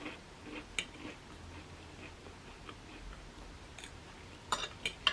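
Faint chewing with soft mouth clicks and a few light ticks, a small cluster of clicks near the end.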